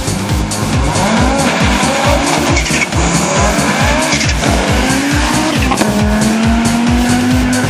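Audi Sport quattro S1 rally car's turbocharged five-cylinder engine revving, rising and falling in pitch, then holding a steady pitch near the end, mixed with electronic music with a steady beat.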